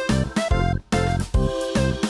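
Upbeat background music with a steady beat, keyboard and bass notes.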